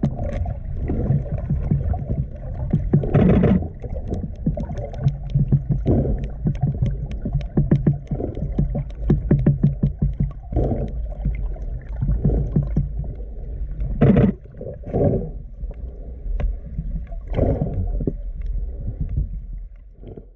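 Female sperm whales clicking underwater: trains of sharp clicks, fastest in dense runs around the middle, over a steady low water rumble. A few louder bursts of water noise break in.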